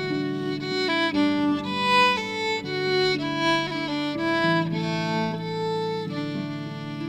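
Violin playing a flowing melody, with lower held notes beneath it; near the end the melody settles into longer, softer notes.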